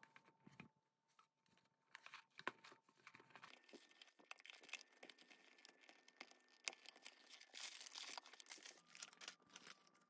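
Faint handling of a cardboard brick-set box as it is opened by hand: scattered clicks and tearing, crinkling rustle of cardboard and plastic packaging, with sharper clicks about two and a half and seven seconds in.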